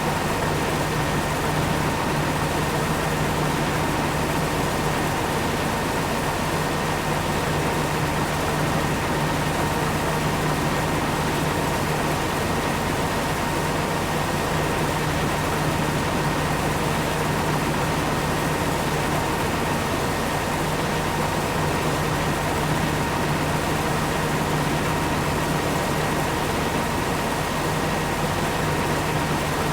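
Corn-harvesting machinery running steadily: a constant engine drone with a steady high whine over it, unchanged throughout.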